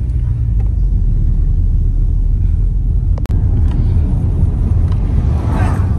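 Steady low road and engine rumble inside a moving car's cabin, with one sharp click about three seconds in and a brief rushing swell near the end.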